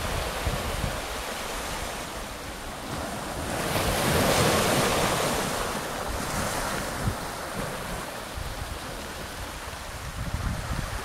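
Small waves washing in over a pebble beach and around boulders. One surge swells to a louder hiss about four seconds in and then draws back. Wind buffets the microphone throughout.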